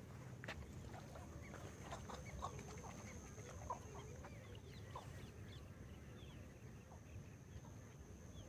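A faint chorus of many birds giving short, overlapping clucking calls, over a steady high-pitched whine.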